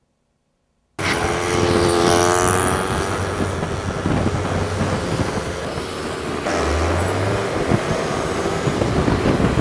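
Street traffic heard from a moving motorbike: motorbike and scooter engines running, with wind buffeting the microphone. Silent for about the first second, then the traffic noise cuts in suddenly.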